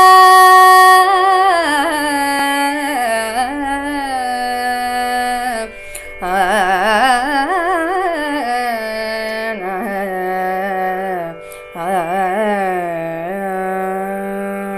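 A woman singing Carnatic music without words, her voice gliding and shaking through ornamented phrases over a steady drone, with short breaks about six and eleven and a half seconds in.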